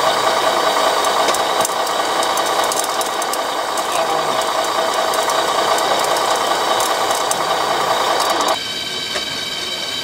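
Radio-controlled model vehicles running: a steady mechanical whir with rattling. The loudest part cuts off suddenly about eight and a half seconds in, leaving a fainter whir with scattered clicks.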